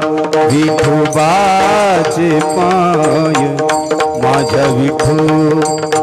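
A man singing a Marathi devotional abhang, his voice gliding and wavering in pitch, over hand-drum and percussion accompaniment that strikes steadily throughout.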